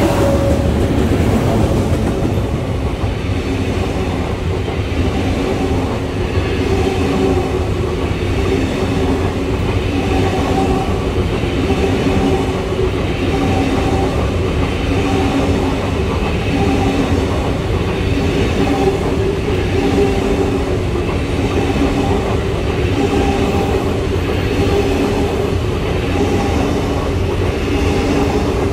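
Freight train rolling past at close range: the tail of the class 18E electric locomotives at the start, then long covered wagons. A steady heavy rumble with a pulsing tone that repeats about every two seconds.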